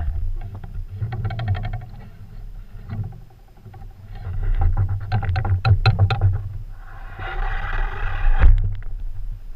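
Handling noise from an action camera being carried and repositioned: rubbing, rustling and scattered knocks over a low rumble, ending in a thump a little before the end as it is set down.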